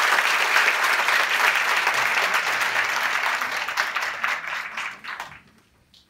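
Large audience applauding with dense, steady clapping that dies away about five seconds in.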